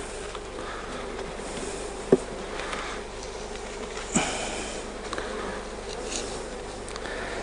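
Honey bees buzzing around an open Langstroth hive, a steady hum, with two sharp knocks, one about two seconds in and one about four seconds in.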